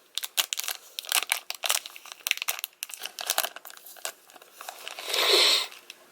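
Plastic trading-card booster pack wrapper crinkling as it is handled and opened, in a run of quick crackles, with one longer, louder tearing rustle about five seconds in.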